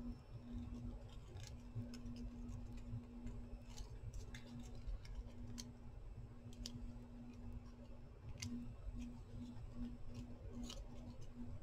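Small scissors snipping a thin die-cut paper or chipboard piece: scattered faint sharp snips and clicks, a second or two apart, over a steady low hum.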